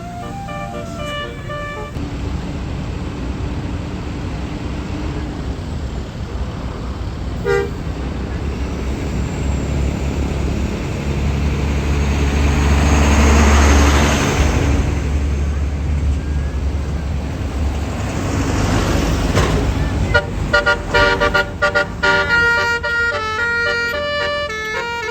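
A tour bus's basuri telolet musical horn playing a stepping multi-note tune, which stops after about two seconds. A bus engine then grows loud and passes close, peaking around the middle and fading, and near the end a basuri horn tune starts up again.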